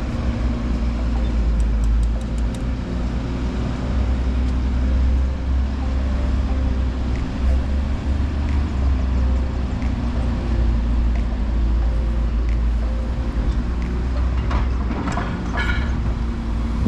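Road traffic on a busy highway: motor vehicles running past with a steady deep rumble and engine drone.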